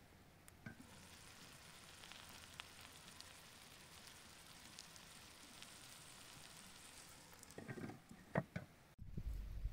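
Rice in a pan over a wood fire sizzling quietly as saffron water is poured over it. Near the end come a few clinks, loudest about eight seconds in, as the metal-rimmed lid is set back on the pan.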